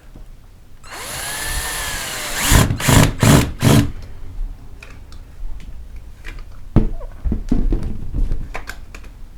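Power drill driving screws for a sliding bar lock: the motor runs for about a second and a half, its pitch rising and falling, then four short loud bursts as the screw is driven in. Scattered clicks and knocks follow.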